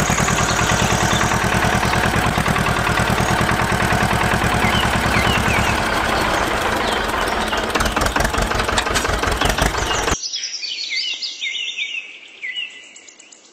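Tractor engine chugging steadily at a fast even beat, with birds chirping over it. About ten seconds in the engine cuts off abruptly, leaving only the birds' chirping calls.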